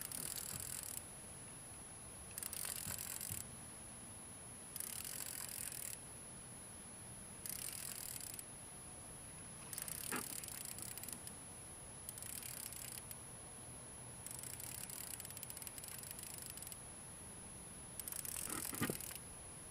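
Fishing reel being cranked in repeated spurts of a second or two, with short pauses between, as a hooked fish is reeled in.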